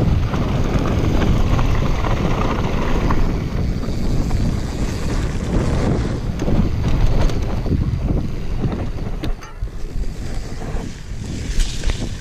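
Wind rushing over an action camera's microphone while a mountain bike rolls fast downhill over gravel and grass, its tyres crunching with scattered knocks and rattles from the bike. The noise eases for a couple of seconds about nine seconds in.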